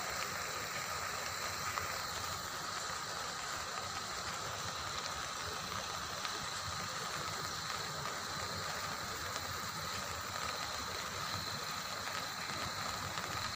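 Floodwater rushing past in a steady, even stream.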